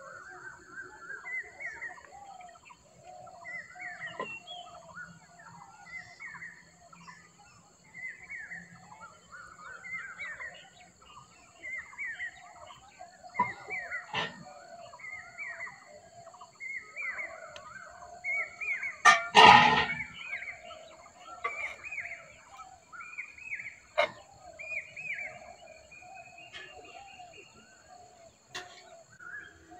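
Birds chirping and chattering, many short calls overlapping. There are a few sharp clicks and one louder burst of noise a little after two-thirds of the way through.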